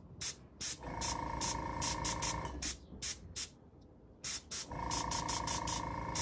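Airbrush fed by an air compressor, blowing short hissing puffs of air, about two or three a second, as the trigger is pressed again and again. A steady motor hum switches on about a second in for under two seconds, and again near the end.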